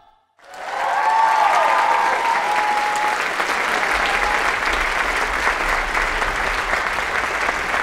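Theatre audience applauding, starting about half a second in after a brief silence, with a few cheers and whoops in the first couple of seconds.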